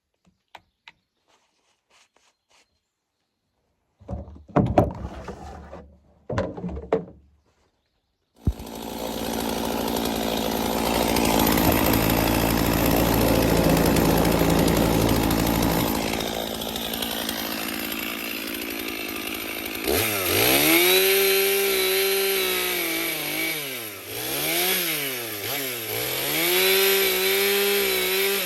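Chainsaw sputtering in two short bursts, then starting about eight seconds in and running steadily. Later it is revved up and down several times.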